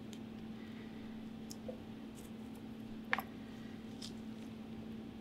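A few faint, short clicks, the sharpest about three seconds in, as small seal parts and springs are handled and pressed into a Wankel rotor, over a steady low hum.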